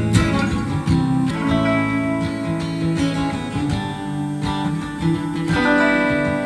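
Relaxed acoustic guitar music, plucked and strummed notes with a steady flow of chords.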